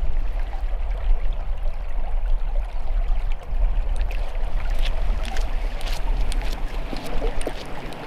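Fast-running water of a narrow moorland leat, a steady rushing, with wind rumbling on the microphone. A scatter of faint clicks comes in the second half.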